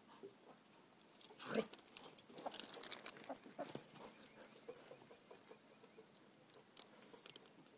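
Scuffling as a dog and a rooster spar on dirt and gravel: a knock about a second and a half in, then a few seconds of quick patters and scrapes that thin out.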